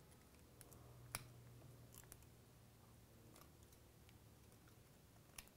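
Near silence, with a handful of faint clicks of a small screwdriver turning the side screws of an iPhone 4's metal midframe to loosen them.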